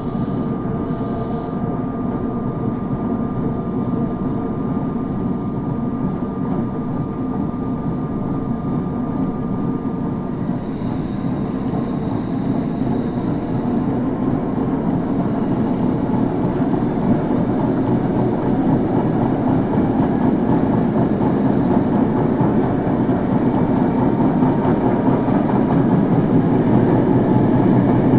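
Running noise of a Tokyo Metro 01 series subway car, recorded on board, growing steadily louder. A thin steady tone fades out about a third of the way in. This car makes abnormal running noise from flat spots on its wheels, loud enough to mask the traction motors' brush noise.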